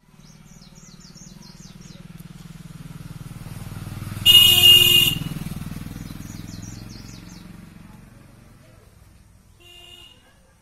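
A motor vehicle passing by, its engine rising and then fading away. Its horn gives a loud blast about four seconds in and a short honk near the end. High chirps, like small birds, come in two short runs.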